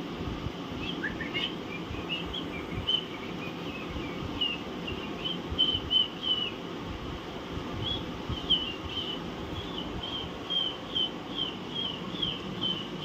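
Alexandrine parakeets giving short, high chirps in quick runs of several notes at a time, over a steady low background hum.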